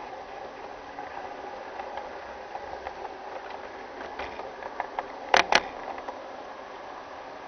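G-scale model train running on garden-railway track, a steady whirr of motor, gears and wheels. Clicks from the wheels on the rail joints and points grow more frequent and end in two sharp clacks about five and a half seconds in.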